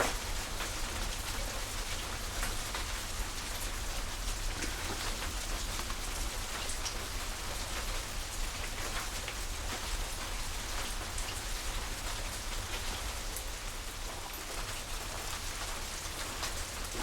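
Wood fire burning in a traditional wood-fired pottery kiln: a steady crackling hiss with many small pops and a few sharper cracks, over a low rumble.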